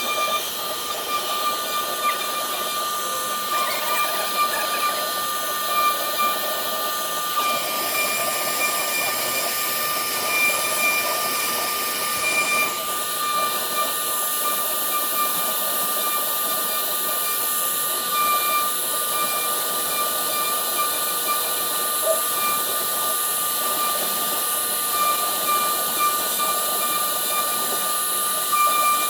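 Woodworking CNC router spindle engraving MDF: a steady high-pitched whine over a continuous hiss of cutting.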